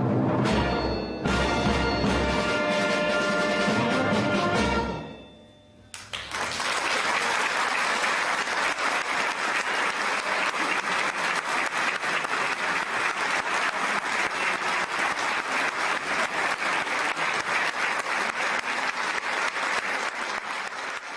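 A wind band of saxophones, clarinets and brass holds its closing chord, which dies away about five seconds in. A second later applause breaks out and runs on steadily.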